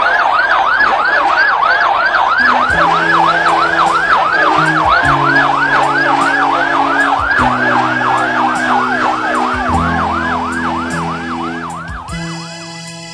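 Emergency vehicle sirens in a fast yelp, rising and falling about three times a second, with a second, slower wail gliding across partway through. A slow music track with sustained low notes comes in underneath after a couple of seconds, and near the end the sirens fade out, leaving the music.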